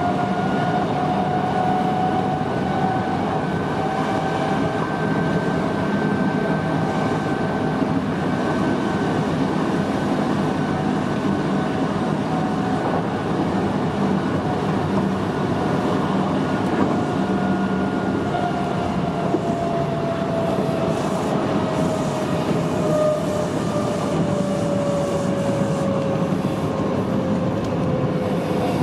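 Kintetsu commuter electric train running, heard from the driving cab: a steady rumble of wheels on track with a motor whine on top. The whine holds its pitch for the first half, then falls steadily through the second half as the train slows.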